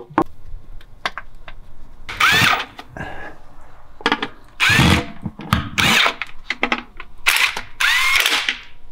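Handheld power tool running in repeated short bursts, its whine rising and falling each time, as the bolts of a refitted automatic-transmission pan are driven in.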